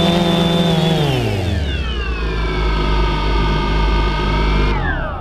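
Small camera drone's electric motors and propellers whining steadily. About a second in the pitch drops as it lands, then runs lower for a few seconds before the motors spin down and stop near the end.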